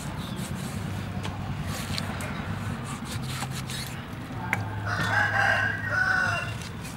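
A rooster crows once, long and loud, about five seconds in. A few sharp clicks come from a cleaver striking a wooden chopping board as it cuts through raw beef heart.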